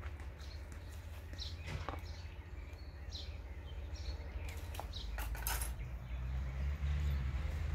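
Outdoor background noise: a steady low rumble with a few short bird chirps, and light clicks and clinks about five seconds in as metal grilling utensils are handled.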